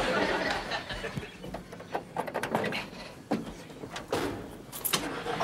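A series of separate clunks and knocks, several in the second half, after a short stretch of noise at the start.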